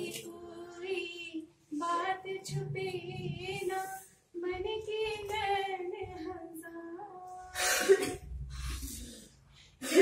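A woman singing unaccompanied, holding long notes that waver in pitch, with short breaks between phrases. A short, loud noisy burst comes about eight seconds in.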